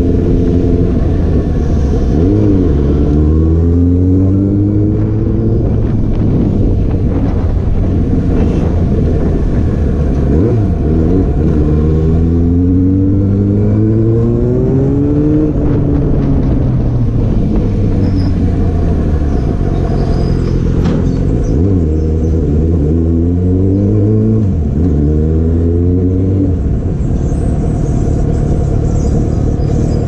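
Yamaha FZ6's 600cc inline-four engine heard from on the bike while riding, accelerating up through the gears: the pitch climbs in each gear and drops sharply at each upshift, with a long fall as the bike slows about halfway through before it pulls up through the gears again.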